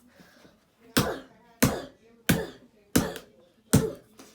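Old Samsung tablet being struck hard five times, roughly two-thirds of a second apart. Each blow is a sharp impact followed by a brief ring.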